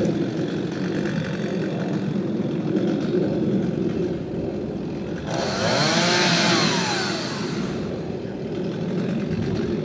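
Chainsaw idling, then revved up into a cut for about two and a half seconds past the middle, its pitch rising and falling under load before it drops back to idle.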